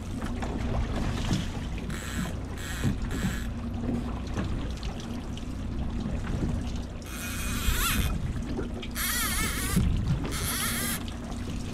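Boat's twin outboard motors running with a low steady hum under water washing along the hull. Several short, high-pitched rasping bursts cut in: three quick ones a couple of seconds in, and longer ones in the second half.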